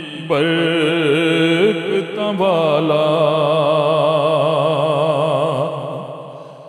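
A man singing a naat in long, drawn-out notes with a wavering vibrato and no clear words. A new held note starts about two seconds in and slowly fades away near the end.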